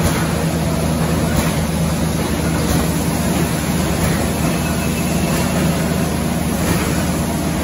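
Industrial plastics machinery running in a plant: a steady mechanical hum and constant noise, with faint regular strokes about every 1.3 seconds, typical of a machine cycling.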